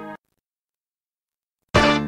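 LG Voyager (VX10000) default ringtones, played as direct audio transfers: the last held chord of one musical ringtone cuts off just after the start, then dead silence, then the next ringtone begins near the end with a loud chord.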